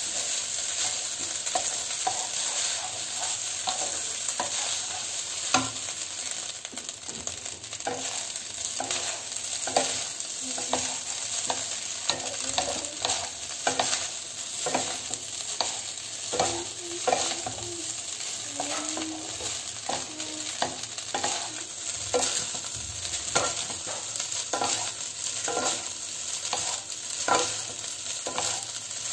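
Egg fried rice stir-frying on high flame in a non-stick kadai: a steady sizzle, with a wooden spatula scraping the pan and knocking against it as it turns and tosses the rice.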